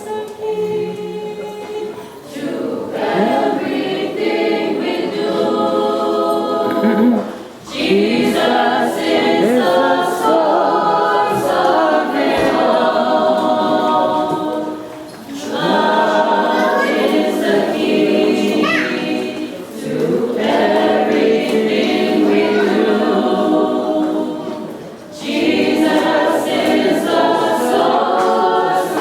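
Vocal group singing a cappella in several-part harmony, in long phrases broken by short pauses for breath.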